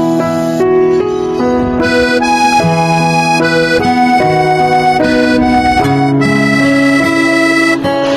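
Background instrumental music: a melody of held notes over sustained chords.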